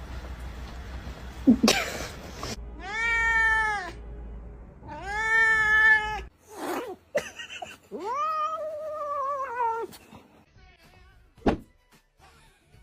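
A domestic cat giving three long, drawn-out meows, each rising then falling in pitch, the third the longest. A brief knock comes about a second and a half in, and a sharp click near the end.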